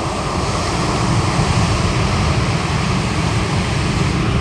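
Surf breaking on the beach, with wind buffeting the microphone: a steady, loud rushing noise.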